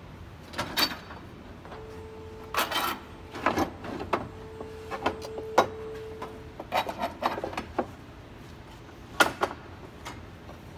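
Wooden boards being set down and slid into place across steel pipe clamps: a run of scattered knocks and clunks of wood on wood and metal, with brief scraping between them.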